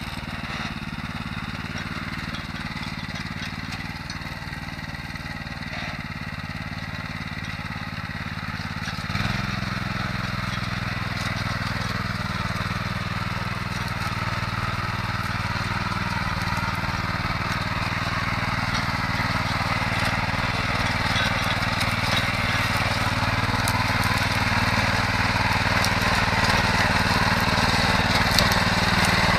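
Datsu motor hoe's small engine running under load as its rotary tines till the soil. About nine seconds in the engine note steps up and grows louder, and the sound keeps getting louder toward the end.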